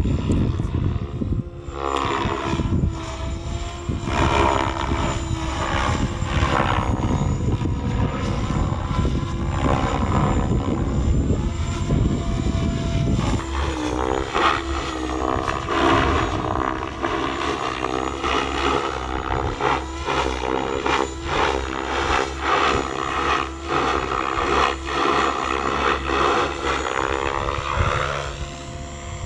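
Goblin Kraken 580 electric RC helicopter flying aerobatics: its rotor blades buzz and its Xnova motor whines, and the pitch of the buzz swings up and down with each manoeuvre.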